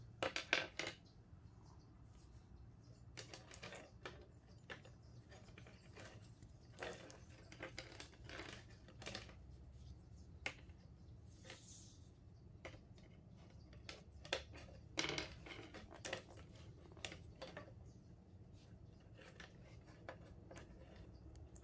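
Wire leads and small metal alligator clips being handled and set down on a wooden table: scattered light clicks, rattles and rustles, with a louder cluster of knocks near the start and again a little past the middle.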